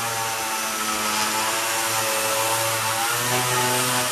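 Electric palm sander running steadily while sanding a bare pine tabletop, its motor hum and the rasp of sandpaper on wood constant, the pitch wavering slightly as pressure changes.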